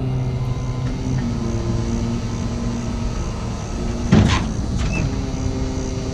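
Diesel rollback tow truck running steadily with its hydraulics working as the flatbed tilts down level under the loaded car, with a loud metallic clunk about four seconds in and a smaller one just after.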